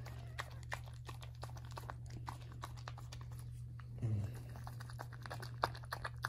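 Mother cocker spaniel licking and chewing at her just-delivered newborn puppy, clearing the birth membranes: a run of small wet clicks and smacks, over a steady low hum.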